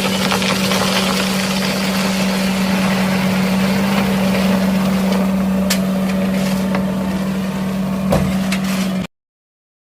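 An engine running steadily at an even speed, with a few sharp knocks and clicks over it. The sound cuts off abruptly about nine seconds in.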